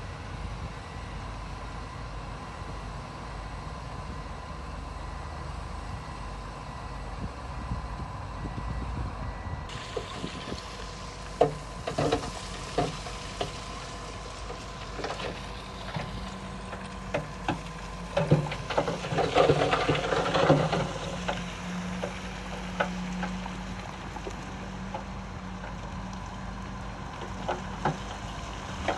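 Heavy earthmoving machinery's diesel engine running steadily. Scattered clanks and knocks come from about a third of the way in, with a louder rattling spell just past the middle, typical of stone being pushed and dropped.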